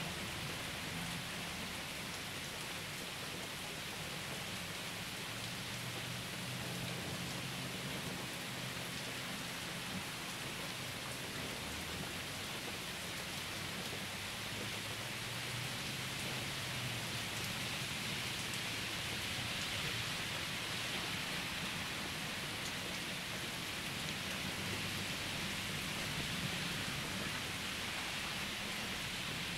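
Steady rain falling, with low rumbles of distant thunder coming and going underneath.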